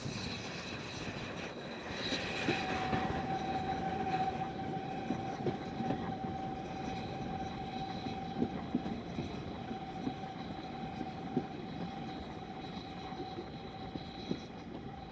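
Narrow-gauge steam train running, heard from a carriage: a steady rumble of wheels on track with irregular clicks and knocks. From about two and a half seconds in, a steady high squeal holds on, typical of wheel flanges grinding on the tight curve.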